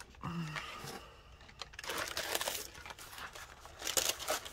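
Paper journal pages being handled and flipped over, rustling and crinkling in quick bursts that grow louder toward the end. A brief murmur of a voice comes just after the start.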